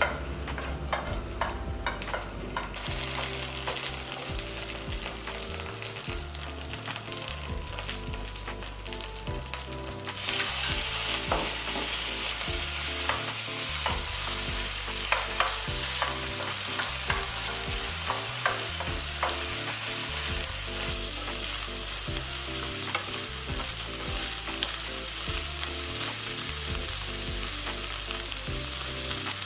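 Food sizzling as it fries in a pan, with a spatula stirring and scraping in scattered clicks. The sizzle gets louder about three seconds in and much louder about ten seconds in.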